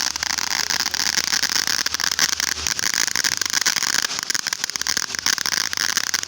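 Ground fountain firework spraying sparks: a steady loud hiss thick with rapid crackling, cutting off suddenly at the end.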